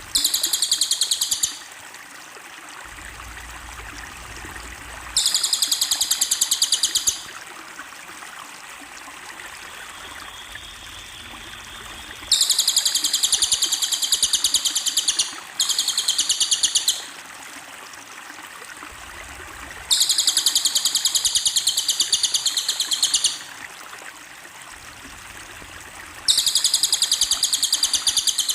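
Cililin songbird singing in bursts of very fast, high, repeated notes. There are six bursts, each lasting one to three seconds, with a steady background hiss between them.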